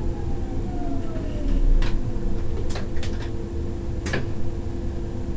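Berlin S-Bahn electric train heard from the driver's cab as it slows to a stop: a steady low rumble and hum, with a motor whine falling in pitch over the first second and a half. Several sharp clicks follow between about two and four seconds in.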